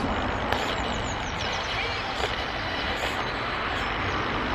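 Poltercom Pico spirit box sweeping through radio stations: a steady hiss of radio static with faint chirps and a few brief clicks.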